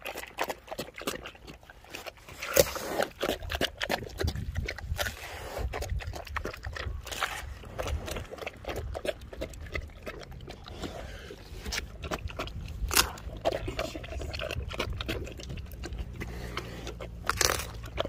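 Black bear biting into and chewing a whole watermelon: wet, irregular crunching of the rind and flesh, with a few louder cracks as pieces of rind break off.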